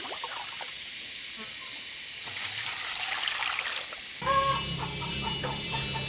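Chickens clucking with short calls, starting suddenly about four seconds in over a steady low hum, after a stretch of hissing noise.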